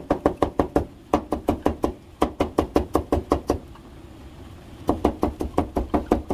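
Kitchen knife rapidly striking a cutting board, about seven strokes a second, while fresh ginger is cut into thin strips. The strokes come in runs, with a pause of about a second a little past the middle.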